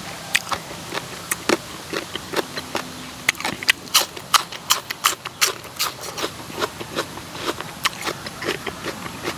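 A person eating spicy papaya salad with pickled salmon and shrimp at close range: wet chewing with an irregular, quick run of mouth smacks and clicks, several a second.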